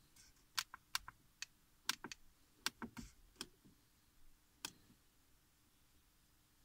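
The plastic push-buttons of a handheld Autel MaxiScan MS300 OBD2 scanner clicking as they are pressed, about ten quick, irregular clicks over the first five seconds, with a faint steady hum underneath.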